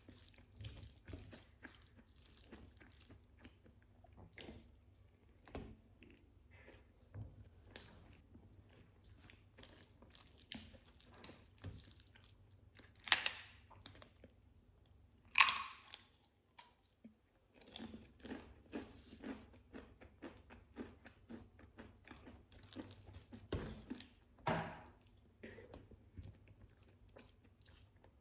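Close-miked eating: steady wet chewing with many small clicks, broken by a few loud, crisp crunching bites about halfway through and again near the end.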